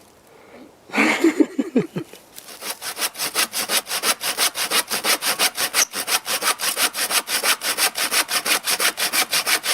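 Hand saw cutting through dead wood for firewood. A rough start with a wavering squeal comes about a second in, then steady, rapid back-and-forth strokes, several a second.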